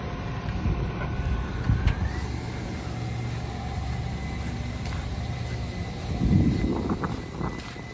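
A vehicle engine running steadily, a low even rumble.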